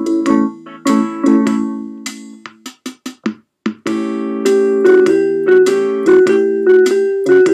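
Yamaha PortaSound PSS-470 portable keyboard playing a slow ragtime blues in A: struck chords, a few short separate notes about three seconds in, then fuller held chords struck again in a steady rhythm.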